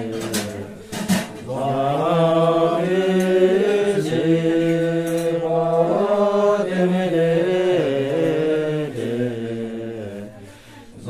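Voices chanting a Buddhist prayer in long, held, melodic notes, with a couple of sharp knocks about a second in and a brief pause for breath near the end.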